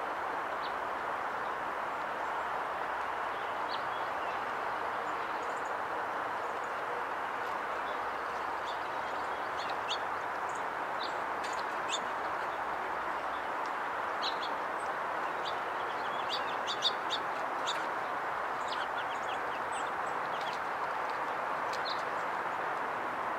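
Short, high chirps and tick calls from small songbirds at a seed feeder, scattered and busiest past the middle, over a steady background hiss.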